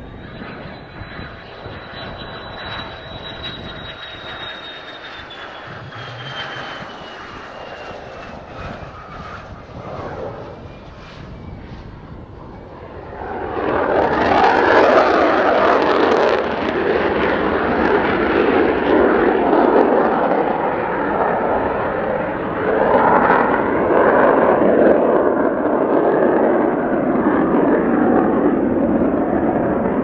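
Mitsubishi F-2B fighter's F110 turbofan. It first runs with a high whine that slowly falls, then about 13 seconds in it spools up sharply to full power for the touch-and-go. The loud jet noise carries on as the fighter lifts off and climbs away.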